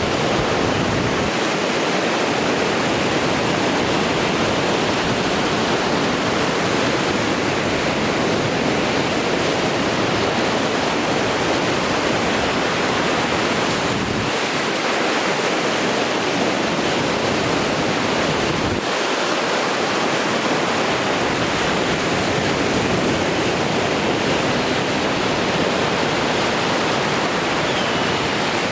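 Baltic Sea surf breaking on the shore, heard as a steady, continuous rush of water.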